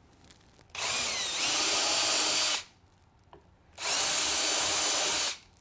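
Cordless drill with a 13/64-inch bit boring out engine-mount bolt holes in plywood, in two runs of about two seconds each. The motor's pitch drops as the bit bites in at the start of the first run.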